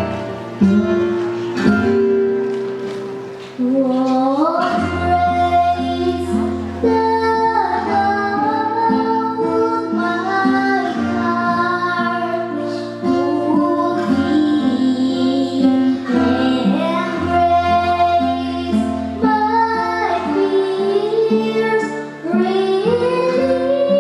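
A female voice singing a song with acoustic guitar accompaniment; the guitar plays alone at first and the voice comes in about four seconds in.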